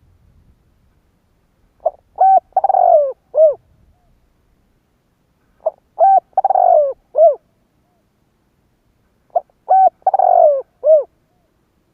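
Spotted dove cooing. Three repeated phrases come about four seconds apart, each made of two short coos, a longer falling, rolling coo and a final short coo.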